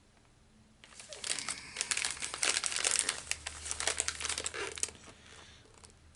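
Plastic snack wrapper of a packaged cookie crinkling as it is handled and turned over, a dense run of crackles starting about a second in and dying away about five seconds in.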